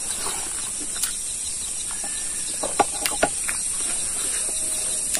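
Close-up mouth sounds of someone eating pork trotter and rice by hand: wet chewing and lip smacks, with a cluster of sharp clicks near the middle. Under them runs a steady high-pitched insect drone of crickets or cicadas.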